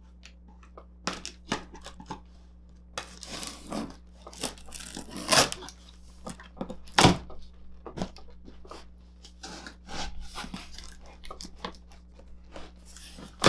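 Large cardboard monitor box being cut along its seam and pulled open: scraping, tearing and crinkling of cardboard and packing tape, with sharp knocks about five and seven seconds in.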